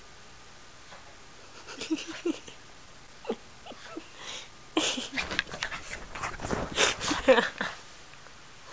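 Shih Tzu snorting: a few short snorts about two and three seconds in, then a dense run of rapid snorts from about five seconds in until nearly eight seconds.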